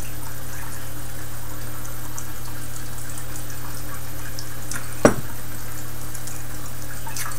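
Steady background hiss and hum, with a single sharp knock about five seconds in as a beer glass is set down on the table.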